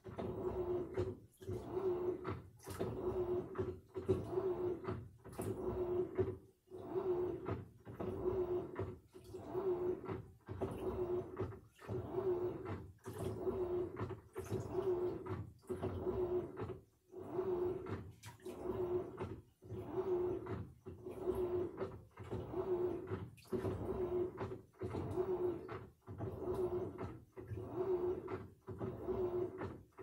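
Samsung front-loading washing machine mid-wash: the drum motor hums with one steady tone while water sloshes in the turning drum, in regular pulses about one every second and a half with short gaps between.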